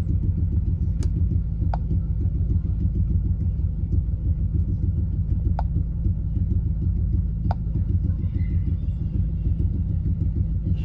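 Steady low rumble of a car's engine running, heard from inside the cabin, with a few light clicks.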